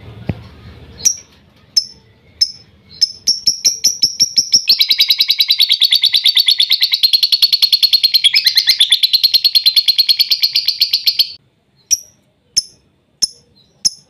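Lovebird singing: a few sharp separate chirps speed up into a long, rapid, unbroken chattering trill (the "ngekek" song) lasting about seven seconds, which cuts off abruptly and gives way to single chirps again.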